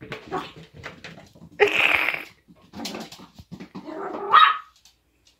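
Small dogs growling at each other while playing, with a louder rough burst about two seconds in and a short high yip just past four seconds.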